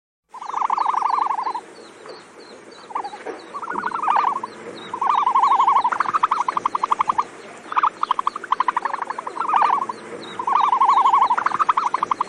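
Ostrich calls: about five bouts of fast, trilling notes, some rising in pitch, over a faint quick ticking.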